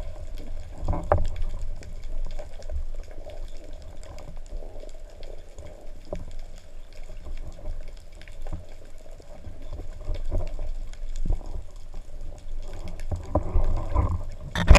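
Muffled sloshing and bubbling of water heard through an underwater camera housing as a diver moves near the surface, irregular and strongest at the low end. A sharp knock near the end is the loudest moment.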